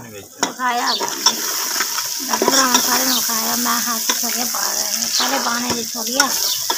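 Onion-tomato masala sizzling in an open aluminium pressure-cooker pot on a gas stove as fresh green chickpeas are tipped in and stirred with a steel ladle, which clinks and scrapes against the pot.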